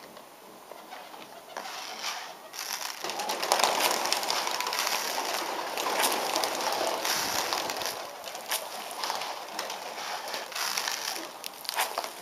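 Flock of pigeons flapping and fluttering their wings as they come down and crowd together to feed on grain, a busy rustle of wingbeats and pecking that builds after a couple of seconds and is loudest in the middle.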